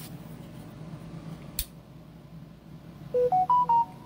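A short electronic jingle near the end: four quick beeps climbing in pitch, the last a little lower. Before it, a faint steady hum and a single sharp click.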